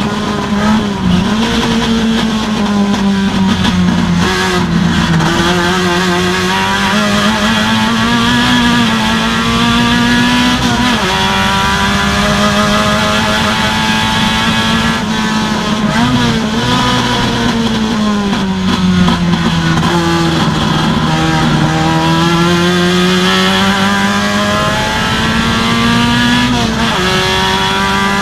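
Procar 2000 touring car's racing engine heard from inside the cockpit, running hard at high revs. Its pitch climbs and sags with the throttle and drops sharply several times, about a second in, about 11 and 16 seconds in, and near the end.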